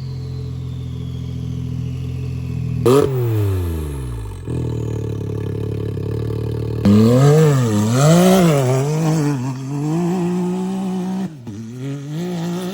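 Can-Am three-cylinder turbo UTV engine with a downpipe and valved exhaust, idling with a turbo whistle that falls in pitch over the first few seconds. About three seconds in a short rev drops away, and from about seven seconds in the engine is revved in a series of quick throttle blips, louder, before settling.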